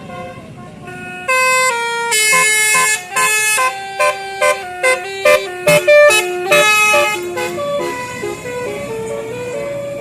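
Bus telolet horn, a multi-tone musical air horn, playing a tune: a loud run of stepped notes starts about a second in, breaks into a series of short blasts around the middle, then the tune goes on more softly.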